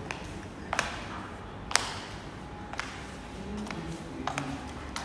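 A series of sharp, ringing taps or clicks, roughly one a second and uneven, the loudest about two seconds in, over a low background hum.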